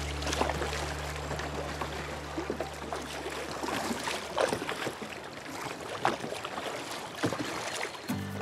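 Kayak paddle strokes splashing into a fast, rippling creek, with the steady rush of shallow running water and a few sharper splashes. Background music fades out over the first few seconds.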